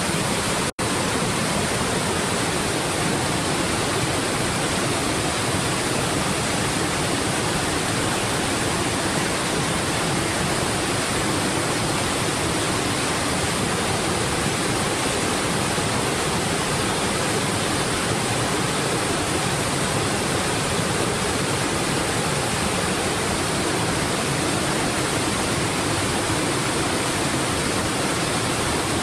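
Triple Falls, a waterfall of three drops, rushing in a steady, even roar of falling water. The sound cuts out for a split second just under a second in.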